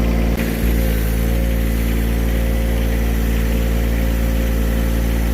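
John Deere 1023E compact tractor's three-cylinder diesel engine running steadily at a constant speed.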